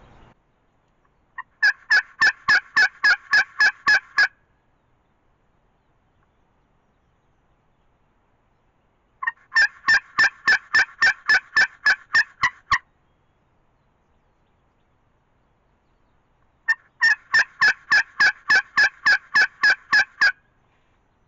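Turkey call worked by a hunter: three loud runs of about ten to a dozen evenly spaced yelps each, several seconds apart, made to coax a gobbler in.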